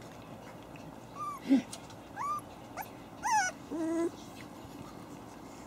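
Young Havanese puppies whimpering and yipping: a handful of short, high, rising-and-falling cries over about three seconds, one louder and sharper about one and a half seconds in, and a longer, lower whine near the end.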